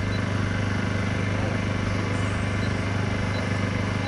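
Steady low mechanical hum, like a small engine running at a constant speed, holding an even level throughout.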